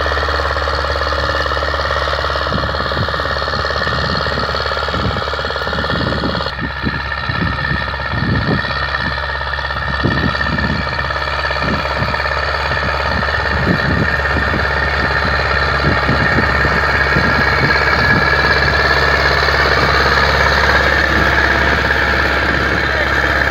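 Ursus C-360 tractor's four-cylinder diesel engine running steadily under load while pulling a spring-tine cultivator through the soil; it gets a little louder near the end as the tractor passes close.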